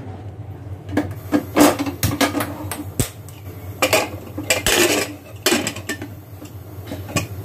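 Pressure cooker being closed and set on a stainless-steel gas stove: an irregular run of metal clanks, clicks and scrapes, some ringing briefly.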